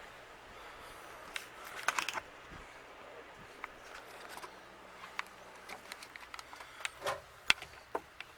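Scattered small clicks and light taps of hands handling parts and tools at a refrigerator. There is a quick cluster about two seconds in and several sharper clicks near the end.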